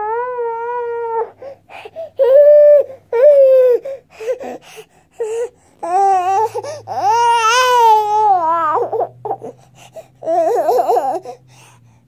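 A baby's high-pitched crying, in a series of cries: a held one at the start, two short ones soon after, a long one that rises and falls about six to nine seconds in, and a wavering one near the end.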